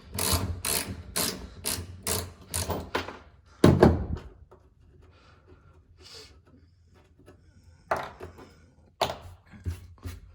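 Hand ratchet wrench clicking in quick, even strokes, about two to three a second, on the shifter mounting bolts. Just before the middle comes one heavier metal clunk, the loudest sound, then only a few scattered clicks and knocks of tools and parts.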